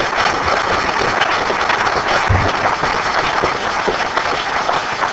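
Audience applauding: dense, steady clapping, with a brief low thump about two seconds in.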